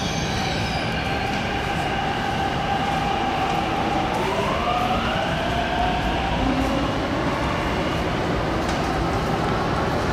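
MTR Kwun Tong Line C-Train running through an underground station behind platform screen doors, with steady wheel-on-rail rumble. Its traction motor whine rises in pitch about four seconds in as the train picks up speed.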